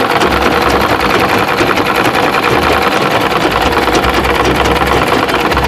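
Sewing machine stitching steadily at a fast, even rate of needle strokes, running a half-inch seam through crinoline, lining and dress fabric.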